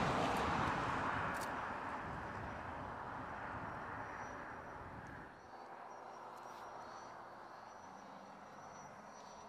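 A Ford Expedition SUV towing a travel trailer passes close by. The road and tyre noise is loudest at the start and fades as it pulls away. About five seconds in the sound drops suddenly to a much quieter, steady vehicle hum from far off.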